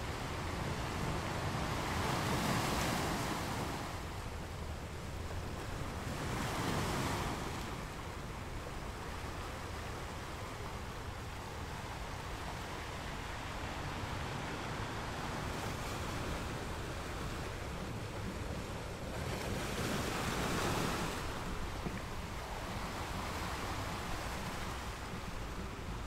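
Ocean surf: a steady hiss of water that swells as waves break, about two seconds in, again around seven seconds, and again around twenty seconds.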